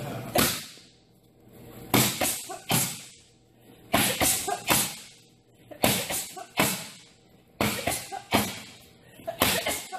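Boxing gloves striking focus mitts in quick combinations of two or three sharp smacks, a burst about every two seconds, each one echoing briefly in the large gym.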